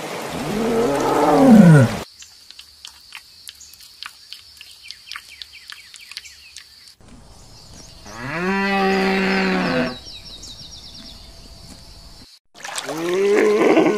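A string of separate animal sounds. First a tiger gives a short growl that falls in pitch. Then come a quiet stretch of faint clicks under a steady high tone, a drawn-out pitched animal call about two seconds long in the middle, and another animal's call starting shortly before the end.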